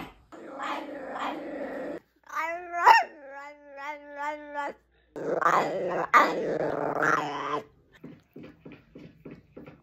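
Bichon frise puppy making strange vocal noises: rough grumbling growls, then a pitched whine that jumps sharply up and wavers for about two seconds, more grumbling, and a quick run of short huffs near the end.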